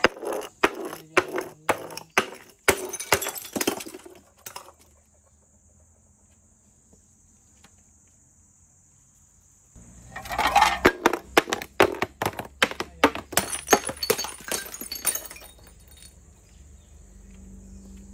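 Glass bottles shattering on a glass pane on concrete steps, each break followed by a quick run of sharp clinks and clatters as the shards scatter down the steps. The first round dies away about four seconds in. After a quiet spell of about five seconds, a second round starts and clatters on for about six seconds.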